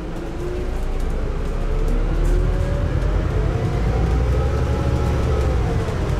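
Scania N280UD double-decker bus pulling away hard, heard from the lower deck. The engine's deep rumble grows louder while the transmission's whine rises in pitch through the first few seconds and then eases back down, with light rattles from the bodywork.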